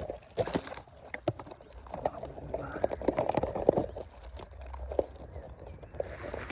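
Rustling and crackling of undergrowth being pushed through or handled, with scattered sharp snaps and clicks at an irregular pace.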